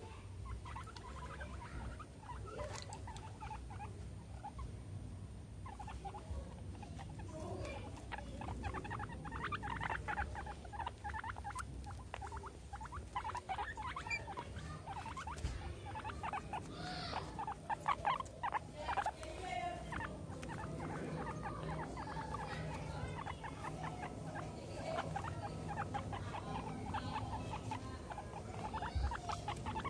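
Guinea pigs moving and nosing about right beside the microphone, making bouts of quick clicking and rustling noises that are busiest in the middle.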